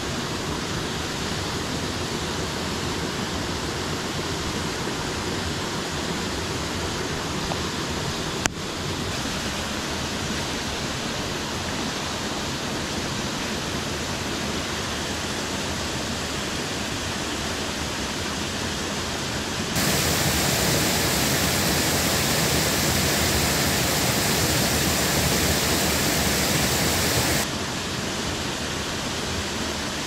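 Steady rushing of water pouring over a small concrete weir into a creek pool. A single sharp click comes about eight seconds in. About two-thirds of the way through, the rush turns louder and brighter for several seconds, then drops back suddenly.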